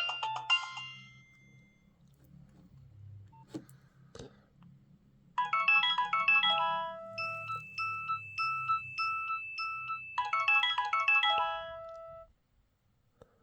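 Nokia 6030 mobile phone ringtones: one ringtone dies away about a second in, then two faint clicks. A new ringtone starts about five seconds in, with quick runs of bright electronic notes, then a held tone under short repeated beeps, then more runs, before it stops abruptly about a second before the end.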